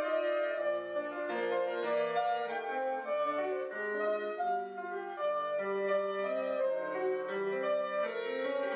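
A grand piano being played: chords under a moving line of notes, flowing on without a pause.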